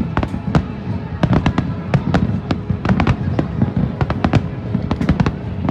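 Fireworks going off in a rapid barrage: several sharp bangs and crackles a second over a continuous low rumble of explosions.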